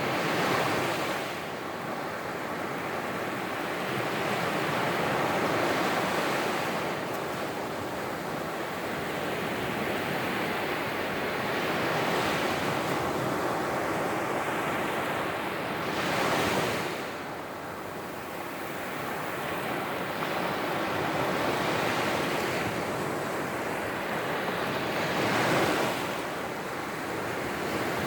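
Surf on a sandy beach: waves breaking and washing up, swelling and easing every several seconds, with about five louder surges.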